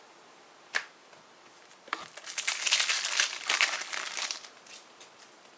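Panini Adrenalyn XL trading-card packet wrapper crinkling and being torn open, about two and a half seconds of crackling. A single sharp tick comes shortly before it.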